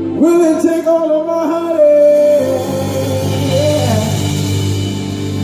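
Male singer holding and bending long wordless notes over a live band's sustained backing, with a steady bass underneath.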